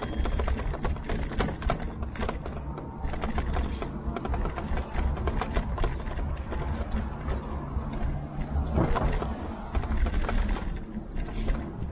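Tern HSD e-bike rolling along an uneven path, heard through its handlebar-mounted action camera: a steady low rumble of tyres and wind with a dense, continuous rattling clatter from the bike and camera mount shaking over the surface.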